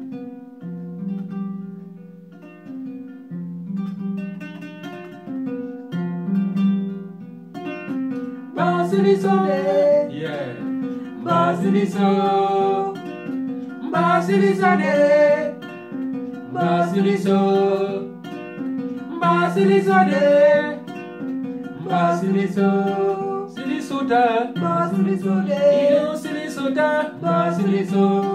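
Kora played alone in a repeating plucked pattern; about eight seconds in a man's voice starts singing a song in Susu over it, in short phrases with brief gaps between them.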